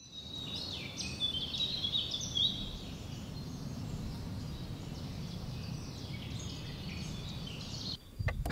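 Woodland ambience: birds chirping and singing over a steady low background noise, busiest in the first few seconds. Near the end come a few brief clicks.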